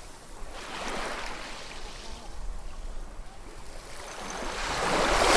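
Ocean waves breaking and washing up the shore, the surf noise swelling and ebbing, with a larger wave building to the loudest surge near the end.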